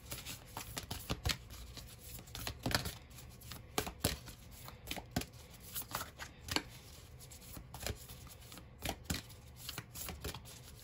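A deck of oracle cards being shuffled by hand: an irregular run of sharp card snaps and slaps.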